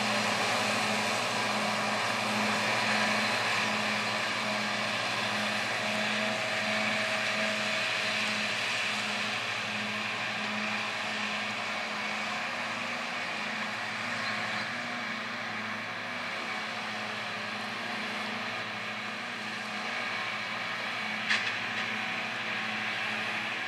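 Lamborghini RS 175 tractor running under load while driving front and side Pöttinger disc mowers through standing grass: a steady engine hum with the mowers' cutter discs spinning, fading a little in the middle and coming closer again near the end. A single sharp click about 21 seconds in.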